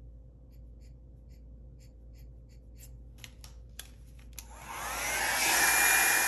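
A Revlon hair-dryer brush switched on about four and a half seconds in: its motor winds up with a rising whine, then it blows loudly and steadily. Before it come a few faint clicks.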